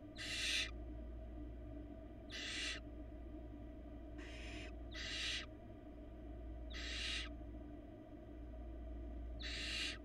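Barn owl nestlings making their raspy hissing 'snore' calls, the food-begging call of young barn owls. There are six short hisses of about half a second each, coming every one and a half to two seconds, over a steady low hum.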